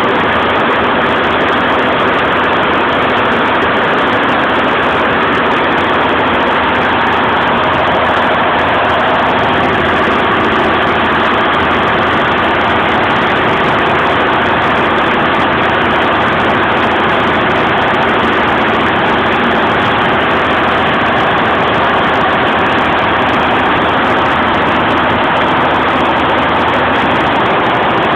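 Golden Lion embroidery machine running steadily at 850 RPM, an even, continuous mechanical sound of fast stitching.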